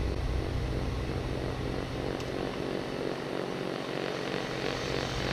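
Snowblower engine running steadily under load while the machine throws snow out of its chute.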